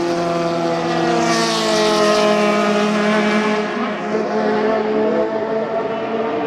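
Historic CanAm race car's V8 engine at speed, passing close: one steady engine note that falls in pitch and then levels off as the car goes by, with a rush of higher noise at the moment of passing, about a second and a half in.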